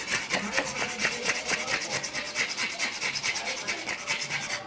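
Pug panting rapidly with its mouth open and tongue out, a fast run of raspy breaths several a second that stops near the end.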